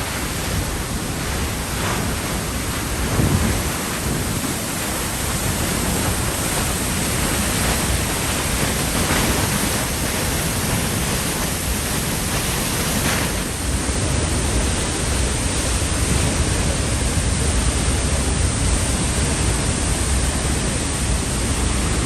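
Peričnik waterfall running full after heavy rain: a loud, steady roar of falling water, with a brief louder low rumble about three seconds in.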